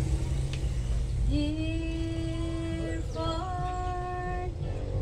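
A woman singing two long held notes, the second a little higher, over the steady low hum of a running sewing machine.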